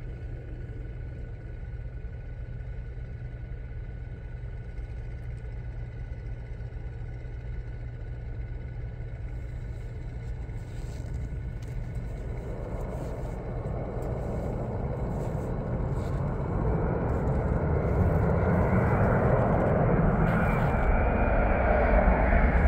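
Jet engines of a Boeing 787 Dreamliner airliner: a steady low rumble with faint whining tones that grows gradually louder over the second half as the aircraft draws nearer.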